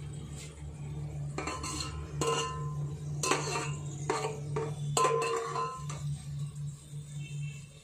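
Perforated steel skimmer scraping and knocking against the inside of a steel pot while scooping deep-fried onion slices out of the oil. There are several ringing metallic clanks between about one and a half and six seconds in, over a steady low hum.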